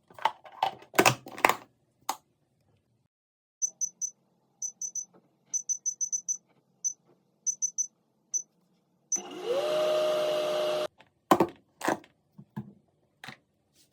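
Microwave oven being set and started: a few knocks, then a string of short, high keypad beeps, then the oven running with a hum that rises in pitch and holds for about two seconds before cutting off, followed by more knocks.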